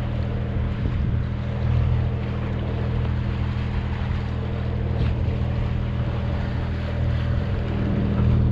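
Sailing yacht's inboard engine running steadily while motor sailing, with a hiss of wind and water over it.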